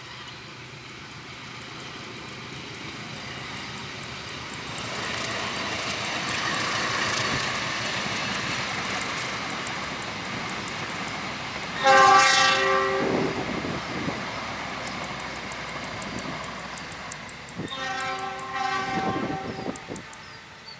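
Train running past, its rumble building over several seconds. A short, loud horn blast about twelve seconds in is the loudest sound, and a second, longer horn blast comes near the end.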